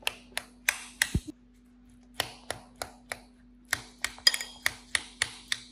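Metal spoon striking and mashing muskmelon in a ceramic bowl: sharp clinks about three times a second, with a pause of about a second near the start. A few strikes ring briefly.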